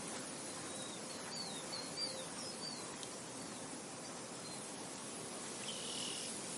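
Wind blowing through a field of wheat, a steady rustling hiss. Several short bird chirps sound about a second in, and one more near the end.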